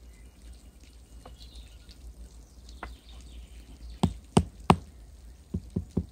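Bricks being tapped down into a sand bed with a hand tool to set them level: three sharp knocks in quick succession about four seconds in, then three softer ones.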